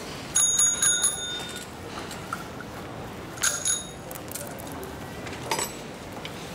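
Bicycle bell rung: a quick double ring about half a second in that rings on for about a second, then a shorter ring about three and a half seconds in. A brief rattle of clicks follows near the end.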